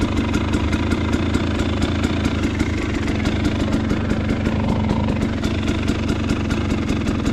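KTM 250 XC dirt bike's two-stroke single-cylinder engine idling steadily, with an even pulse of about six ticks a second.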